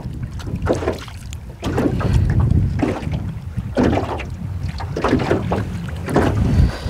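Wind rumbling on the microphone, with choppy water slapping against the hull of a small aluminium boat about every half second to a second.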